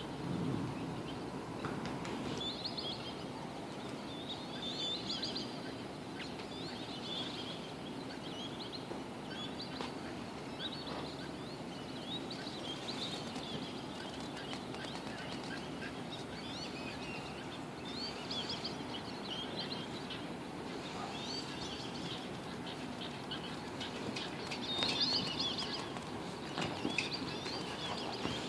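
Small birds chirping in short, repeated bursts, every second or two, over a steady low rush of background noise.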